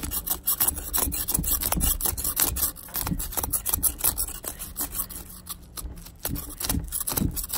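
Kitchen knife scraping the large scales off a common carp, in many quick, uneven rasping strokes.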